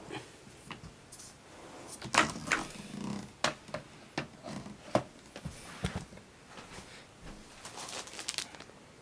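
Irregular hard-plastic clicks and knocks from handling a Miele S6 canister vacuum's wand and floor head, the loudest about 2 seconds in; the vacuum motor is not running.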